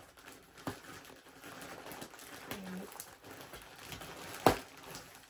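Rustling and handling of clothing and plastic packaging, with a few light clicks and one sharp click about four and a half seconds in.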